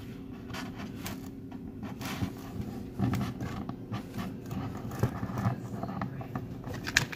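Handling noises from a homemade toy vending machine being worked by hand: irregular scraping, rustling and light tapping as its lever is pushed and the prize drops, with a few sharper knocks.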